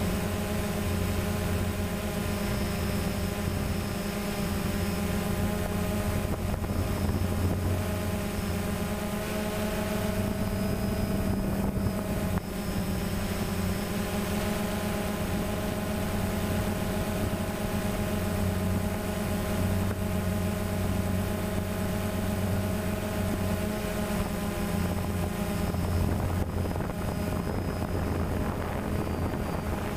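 DJI Phantom quadcopter's motors and propellers running in flight, a steady buzzing hum of several tones over a rush of air, heard close up from the camera on the drone.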